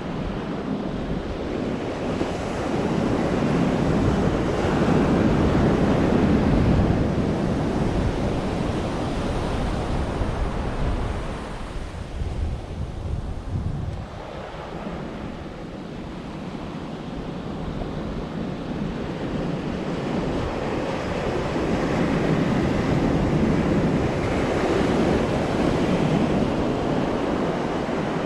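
Sea waves breaking on the shore, a continuous surf wash that rises and falls in two long swells.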